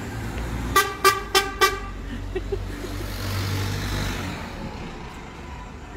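A vehicle horn toots four quick times about a second in. The low rumble of passing road traffic follows.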